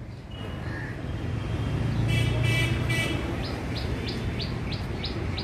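A bird calling: a short, rapid trill about two seconds in, then a run of evenly spaced short chirps, about three a second. Beneath them is the low rumble of a passing vehicle, loudest in the middle.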